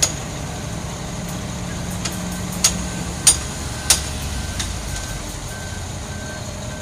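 Heavy diesel engines of a concrete mixer truck and a truck-mounted concrete pump running steadily, with a box truck driving past close by. Sharp clanks cut through, three of them close together near the middle, and from about halfway a faint beep repeats about twice a second.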